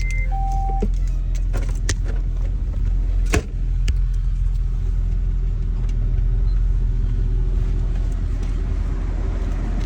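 Acura TL Type S 3.5-litre V6 engine and exhaust running with a steady low rumble, with a short beep near the start and a sharp click about three and a half seconds in. The owner hears hesitation from the exhaust, a misfire that new catalytic converters have not cured.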